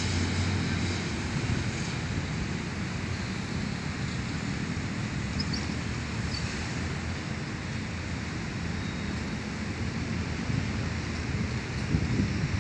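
Steady rush of distant road traffic, with wind blowing on the microphone.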